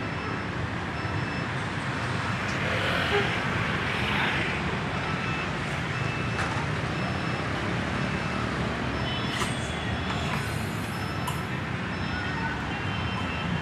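City street traffic: cars, motorcycles and trucks running and passing in a steady hum, swelling for a few seconds near the start. Faint short beeps come and go over it.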